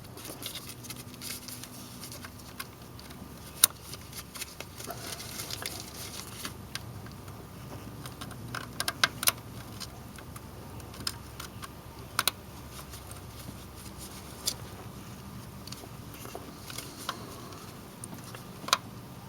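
Scattered light clicks and small rattles of a remote starter switch's alligator clip and test lead being worked down into a car engine bay onto the starter solenoid terminal, over a faint steady hum.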